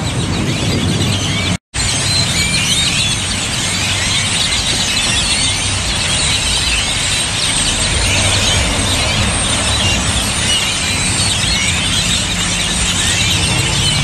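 A large flock of birds perched on power lines, calling all at once in a loud, dense, continuous din of chattering squeaks and chirps. The audio drops out for a split second about one and a half seconds in.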